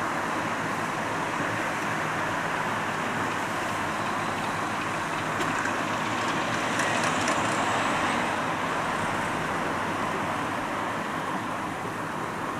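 Steady rumble of a distant diesel locomotive hauling coaches past, swelling slightly midway, mixed with road traffic noise. A faint high whine and a few ticks come in about seven seconds in.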